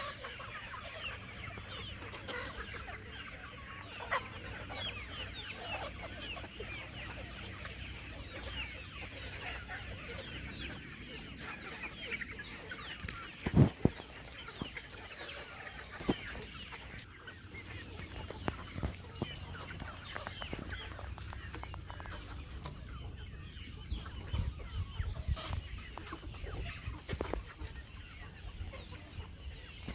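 A flock of native country chickens clucking and calling continuously, with one sharp knock about halfway through.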